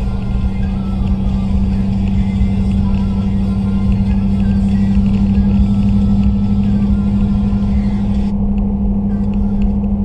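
Pickup truck driving, heard from inside the cab: a steady low engine and road drone with a strong hum. Music plays from the stereo underneath, and the higher sounds drop away abruptly about eight seconds in.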